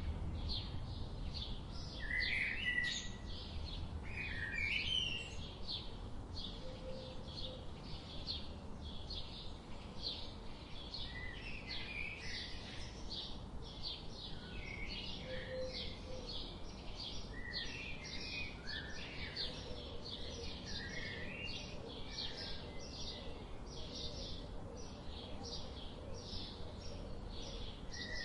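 Several birds chirping and singing at once: a dense run of short, high notes that keeps up throughout, over a low steady background rumble.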